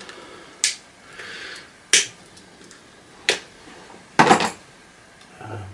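Four sharp plastic clicks as the vacuum cleaner motor's plastic coil mounts are handled and prised at, the last one the loudest.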